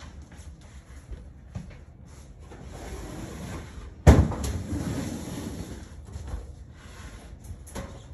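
Rustling with scattered small knocks, and one sharp thump about four seconds in that is the loudest sound.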